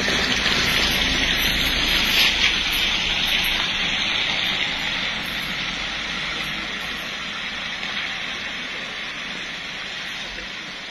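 Vehicles driving away on a wet road: a steady hiss of tyres on wet asphalt with a low engine rumble, fading gradually.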